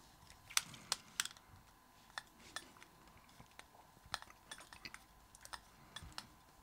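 A small screwdriver turning a tiny screw on a condenser microphone's capsule mount: faint, irregular metallic clicks and ticks.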